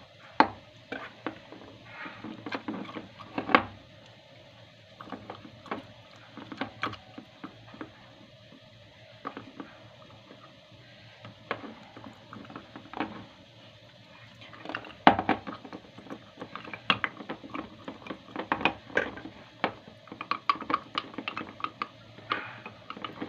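Kitchen handling sounds: scattered sharp clicks and knocks of a spoon and utensils against a glass jam jar and dishes as the jar is filled. The clatter is sparse for a while, then busier again about fifteen seconds in.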